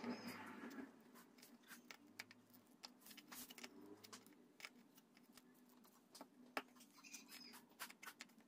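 Very quiet hand-soldering on a circuit board: a brief hiss as the soldering iron tip meets the joint in the first second, then scattered small clicks and ticks from the iron tip and solder wire against the board.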